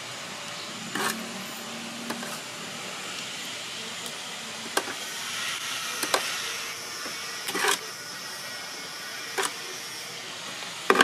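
A metal ladle clinking against the aluminium taho canister and its inner pots as it scoops: about half a dozen short, sharp clinks spread out, some ringing briefly, over a steady background hiss.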